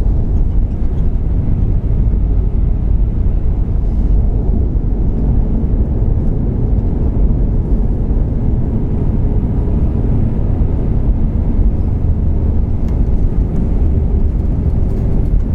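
Airliner cabin noise during the landing roll of an Airbus A321: a loud, steady low rumble of the engines and the wheels on the runway.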